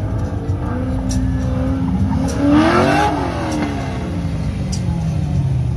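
C5 Corvette's V8 engine accelerating through an autocross cone course. The engine pitch climbs as the car approaches and falls away as it passes close by, about three seconds in.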